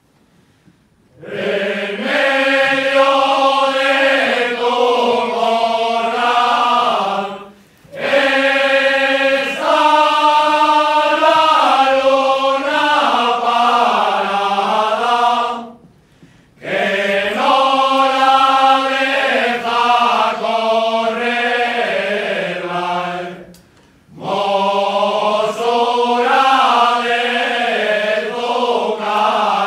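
Men's folk choir of a traditional Cantabrian ronda singing together in four long phrases, each broken by a short pause for breath.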